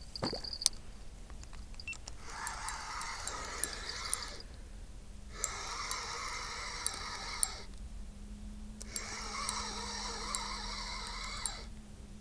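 Spinning reel being cranked in three spells of two to three seconds each, with short pauses between, winding in the feeder rig. The whirring of the reel carries occasional light clicks.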